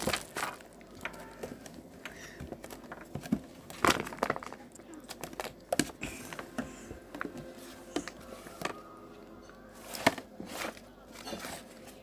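Scattered clicks and knocks from things being handled on a wooden floor, the loudest about four and ten seconds in, with a faint voice now and then.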